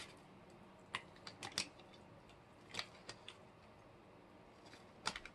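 Eating sounds close to the microphone: faint, scattered, sharp mouth clicks and smacks of chewing chicken, about ten in all, with a pair near the end.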